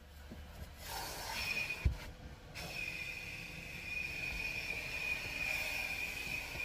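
Coin-operated car-wash vacuum running, a steady rushing hiss with a high whine, heard from inside the car while the hose works in it. A thump about two seconds in, after which the whine drops out for a moment and then returns.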